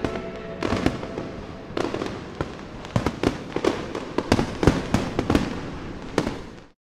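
Fireworks display going off: a run of irregular bangs and crackles, a few a second, over a steady hiss. Dance music fades out in the first moment, and the sound cuts off suddenly near the end.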